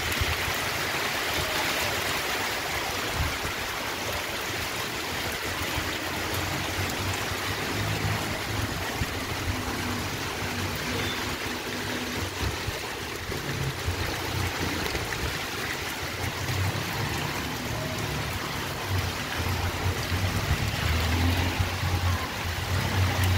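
Heavy rain falling on clay tile roofs, a steady hiss, with an irregular low rumble underneath that grows stronger near the end.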